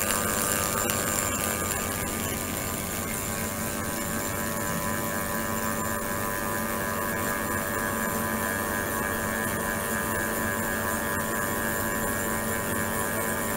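Ultrasonic water tank running: a steady hum made of several fixed tones over a faint hiss.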